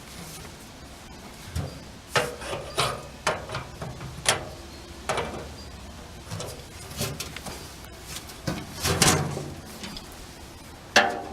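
Hands-on fitting work: a run of irregular knocks, clicks and scrapes as parts and hardware are handled and set in place.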